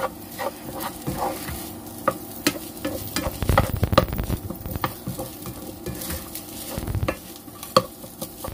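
Fried rice sizzling in a frying pan while a spatula stirs and turns it, with irregular scraping and tapping of the spatula against the pan over the low sizzle.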